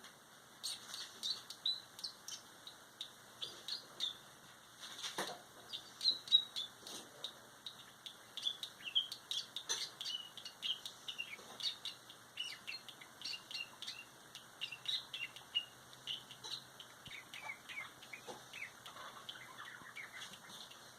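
Budgerigars warbling softly: a continuous run of short, high chirps and chatter, with an occasional sharp click.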